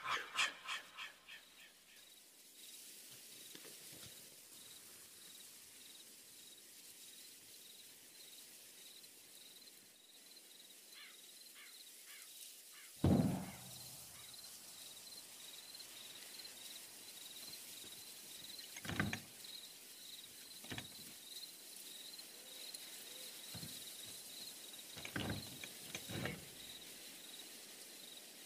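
Night woods ambience: insects keep up a steady, high, pulsing trill. A short run of rapid clicks fades out at the start, and a few scattered thumps follow, the loudest about halfway through.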